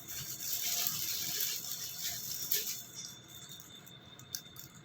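Soft rustling with a few light clicks as something is handled, fading out about three seconds in.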